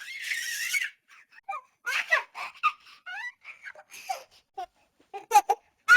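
One-year-old baby giggling and laughing in short separate bursts, with a breathy sound at the start and the loudest laughs near the end.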